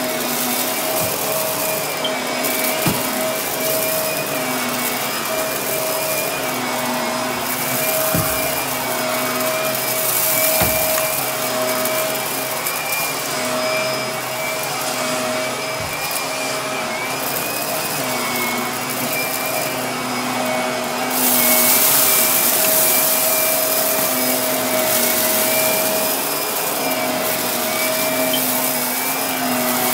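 Upright bagless vacuum cleaner running on carpet, its motor giving a steady whine over a rushing hiss of air. The hiss grows louder about two-thirds of the way through, and a few faint knocks come from the head as it is pushed back and forth.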